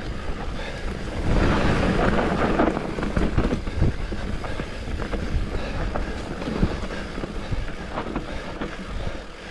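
Mountain bike rolling fast down a dirt trail: tyres crunching over the ground and the bike rattling and knocking over bumps, getting louder about a second in.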